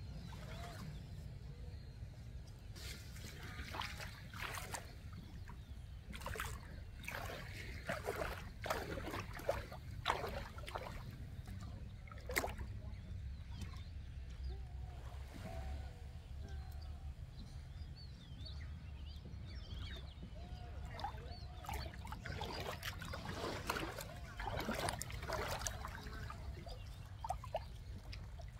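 Sea water sloshing and splashing in short irregular bursts as a person wades into calm shallow water, over a steady low rumble.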